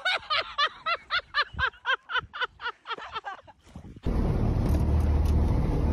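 Someone laughing hard in a quick run of high-pitched 'ha' bursts, about five a second, as the kayak tips over. About four seconds in it cuts abruptly to a steady low rumble of a boat engine and wind noise.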